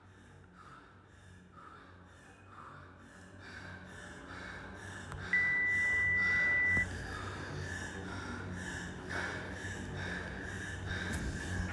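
Heavy, rapid panting of a woman catching her breath after finishing an all-out CrossFit workout. About five seconds in, a single long high electronic beep sounds for about a second and a half.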